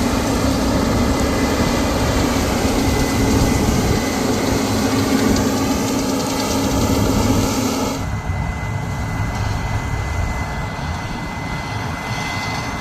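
Combine harvester running steadily at work, an even mechanical drone with a thin steady whine. About eight seconds in the sound suddenly turns duller and a little quieter.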